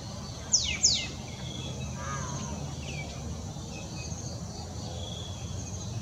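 African grey parrot giving two sharp whistles that fall quickly in pitch, about a third of a second apart, then a softer wavering call and one more short falling note. Faint high chirping and a low rumble run underneath.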